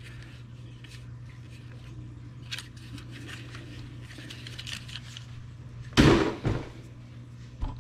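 Light clicks and rustles of a plastic-housed, copper-wound deflection yoke from a rear-projection TV being turned in the hands, over a steady low hum. About six seconds in there is a loud knock, and a second one about half a second later.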